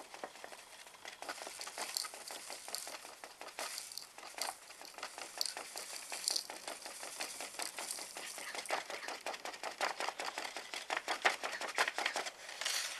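A folded sheet of paper crinkling in the fingers as gold flakes are tipped off it into the pan of a small digital scale, with a rapid run of light ticks and rustles that grows denser and louder in the second half.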